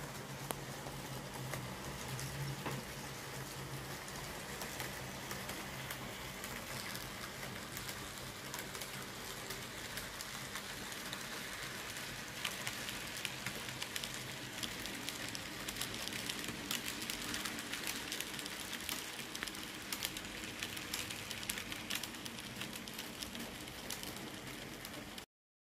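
Model trains running on a layout: a steady rattle of small wheels clicking over the rail joints, with a low hum. It cuts off suddenly near the end.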